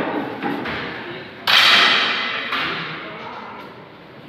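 A single sharp air gun shot about a second and a half in, with a ringing echo that dies away over about two seconds.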